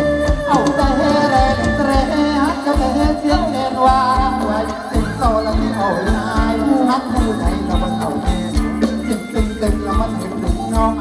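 Live Thai ramwong dance music from a band: a steady drum beat over a held low tone, with a melody that slides up and down in pitch.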